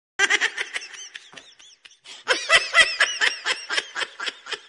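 A high-pitched laugh, a quick run of short ha-has at about five a second. It fades briefly in the middle, then comes back louder.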